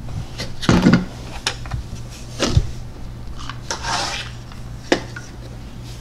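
Plastic toy kitchen pieces knocking and clattering on a tabletop: a few separate taps and clunks, with a short sliding rub about four seconds in.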